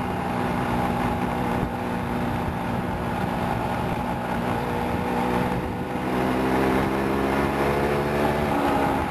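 A car's engine running steadily, with tyre and road noise, heard from inside the moving car. About six seconds in, the engine note shifts and grows a little louder.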